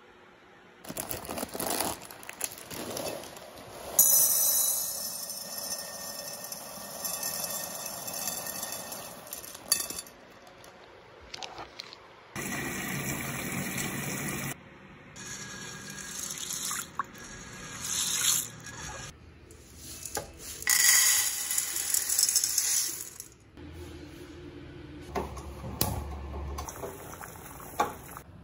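Tap water running and splashing over red adzuki beans as they are rinsed in a bowl, in several short clips that cut in and out abruptly. Near the end, a pot of the beans bubbling at the boil.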